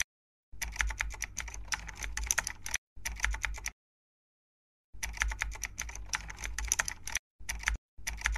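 Computer keyboard typing sound effect: rapid key clicks in runs of a second or two, broken by sudden cuts to dead silence, the longest lasting about a second midway through.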